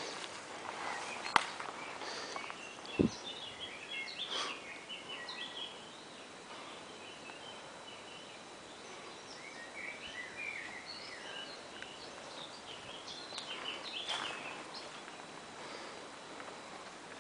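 Small songbirds twittering and warbling, on and off. A sharp click about a second in and a dull thump about three seconds in stand out as the loudest sounds.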